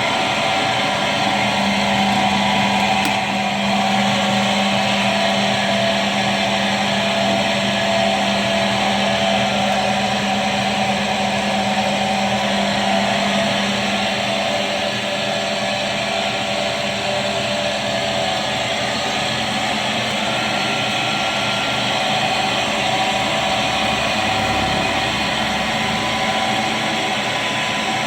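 Automatic stone drilling machine with an inverter-driven electric motor, running steadily with a constant mechanical whine and hiss. A low hum drops away about halfway through.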